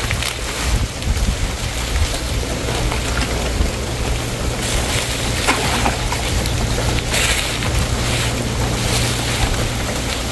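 Water sloshing and splashing as a person wades waist-deep through a pond, with a few louder surges of splashing midway and near the end. Wind buffets the microphone throughout as a steady low rumble.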